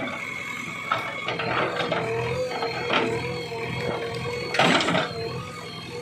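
JCB 3DX Eco Xpert backhoe loader's diesel engine running steadily under load, with a steady whine, while the backhoe bucket digs out a tree stump. Short scraping strikes of the bucket in the soil and roots come about a second in and at about three seconds, and a louder, longer one near five seconds.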